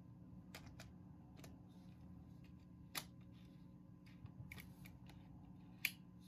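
Faint clicks and scrapes of a Canon EF-S 18-55mm kit lens being fitted and twisted onto a Canon EOS Rebel T100 body's bayonet mount, with the sharpest click near the end as the lens locks into place.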